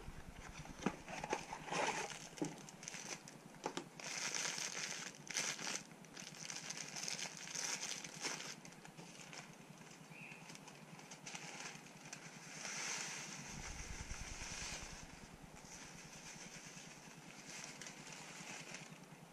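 Rustling and crinkling of a cardboard breadcrumb box and paper bags being handled, with small clicks and crackles coming and going.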